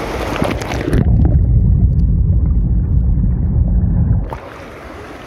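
Swimming-pool water splashing, then about three seconds of loud, muffled, deep rumbling and bubbling heard with the microphone under the water. It clears abruptly near the end as the microphone comes back out.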